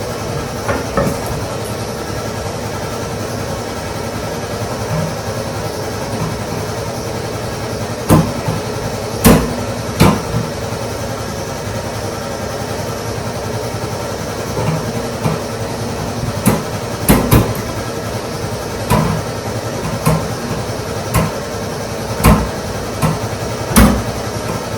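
A dozen or so sharp, separate knocks of hard objects, some in quick pairs, over a steady low hum.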